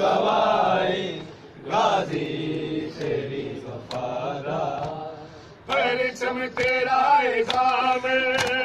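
Men chanting a noha, a mourning lament, with sharp chest-beating slaps of matam joining in about six seconds in, at roughly two a second.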